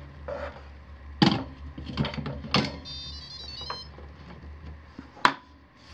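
Instant Pot air fryer lid being set down and seated on the stainless-steel cooker base: several hard plastic-on-metal knocks and clunks, the loudest a little over a second in, with a short electronic chime of a few high notes about halfway through.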